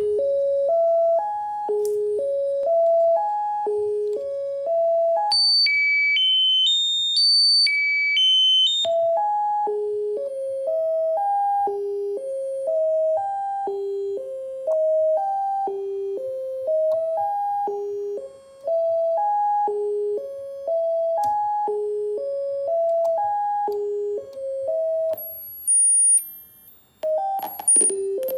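Electronic beep tones from an FPGA arpeggiator on a Nexys A7 board, played through a small portable speaker: a repeating rising four-note arpeggio, about two or three notes a second. For a few seconds the pattern jumps to much higher pitches, and near the end it jumps high again and briefly jumbles.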